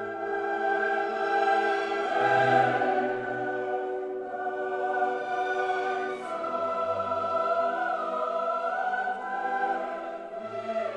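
Choral music: a choir singing long held notes that change every few seconds.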